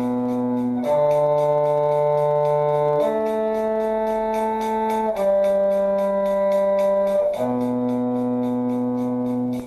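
Sustained held notes of a string shifting exercise, the pattern B, D, A, G and back to B, each note held about two seconds with steady pitch. The note changes four times, and the last note cuts off at the end.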